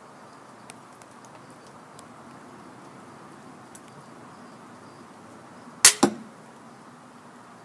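A pistol crossbow fires a bolt about six seconds in, making two sharp cracks a split second apart: the string snapping forward, then the bolt striking the target. Before that, a few faint ticks of the shooter handling the bow.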